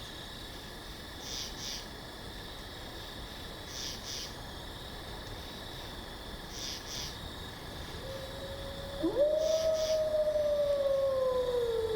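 An animal howl: one long call that starts about eight seconds in, jumps up in pitch and then glides slowly downward, louder than everything else. Underneath is a steady outdoor chorus with a pair of high chirps every couple of seconds.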